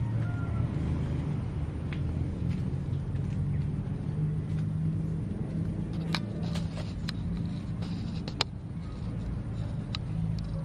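Steady low rumble of a running motor, with a few scattered clicks and one sharp tick about eight seconds in.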